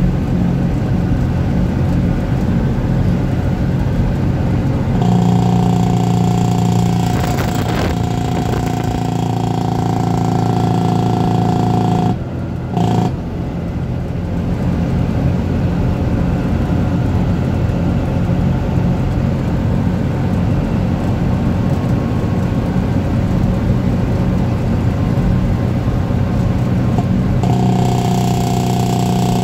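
Dodge Big Horn semi tractor's diesel engine and drivetrain running under way, heard from inside the cab, with a steady whine that comes in about five seconds in. The sound briefly drops off about twelve seconds in, then picks up again, and the whine returns near the end.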